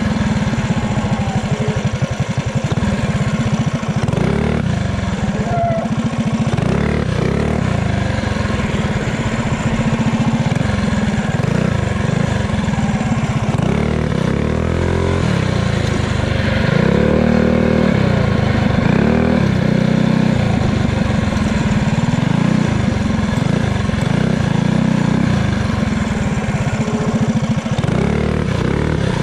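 Small pit bike engine running while riding, its pitch rising and falling as the throttle is opened and closed, with the most revving around the middle.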